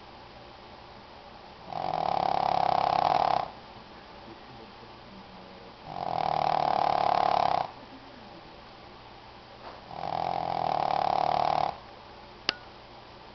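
Shih Tzu snoring loudly while asleep: three long, even snores about four seconds apart. A single sharp click sounds near the end.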